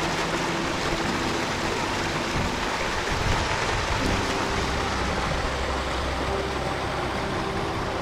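Steady rushing water, an even loud hiss with no distinct strokes.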